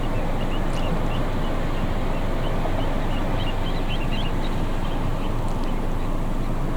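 Little ringed plovers calling: short high chirps in two quick runs, early and again past the middle, over a steady low rumble that is the loudest sound.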